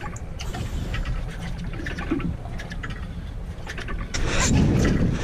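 Steady low rumble of a fishing boat at sea, with a louder rush of noise from about four seconds in.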